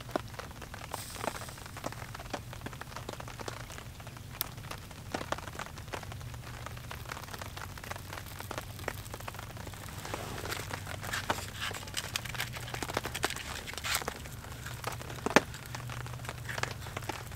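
A small fire catching on birch bark and a paraffin-wax-coated cardboard fire starter lit with a match: faint scattered crackles and ticks, with a few sharper snaps in the second half.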